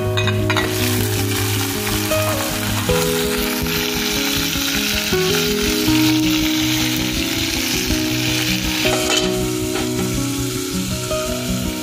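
Raw goat meat sizzling in hot oil and fried onions in an aluminium pot, a loud, dense frying hiss that dies down about nine seconds in. Background music plays underneath.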